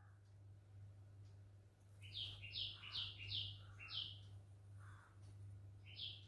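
Faint bird chirping: a quick run of short, two-step chirps about two seconds in and again near the end, over a steady low hum.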